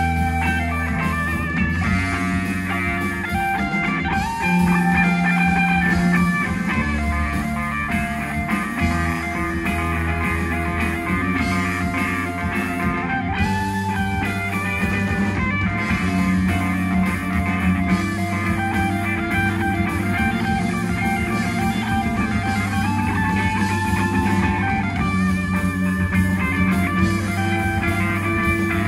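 Rock band playing a continuous instrumental passage, with guitar to the fore over a steady bass line.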